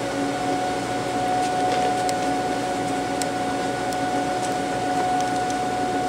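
Haas vertical machining center running: a steady mechanical hum with a steady whine through it and a few faint clicks.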